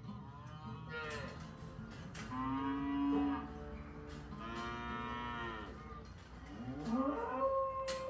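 Holstein dairy cows mooing: about four long moos one after another, the last one rising in pitch as it starts.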